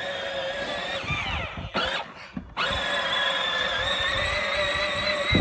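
Electric drive motor and gearbox of a battery-powered ride-on toy tractor whining steadily as it drives. The whine falls away and stops briefly about two seconds in, then starts up again and runs on steadily.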